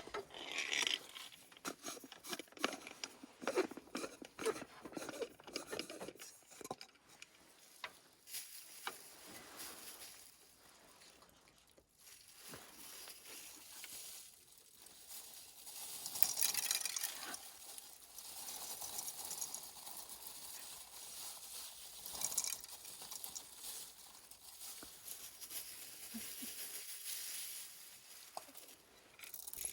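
Irregular handling noises: rustling, small clicks and light knocks, with louder bursts of hiss about two seconds in and again around sixteen seconds in.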